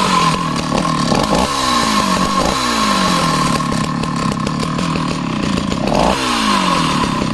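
A Danarm 71 two-stroke chainsaw running and being blipped on the throttle. The engine speed jumps up and falls back several times, with a bigger rev about six seconds in.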